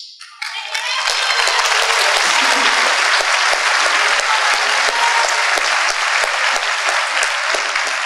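Audience applauding: one long, steady round that begins about half a second in.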